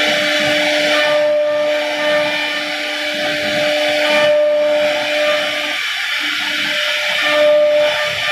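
A 1325 CNC wood router's spindle whining steadily at speed while its bit carves grooves in a wooden panel, with a cutting hiss over the whine. The hiss eases briefly about every three seconds.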